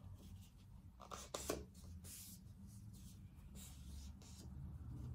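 A sheet of paper or card being folded and creased by hand: faint rustles and short crackles, the sharpest about a second in.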